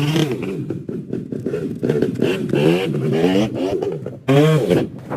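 Motorcycle engine being revved in repeated blips, its pitch rising and falling again and again, with a louder rev about four seconds in.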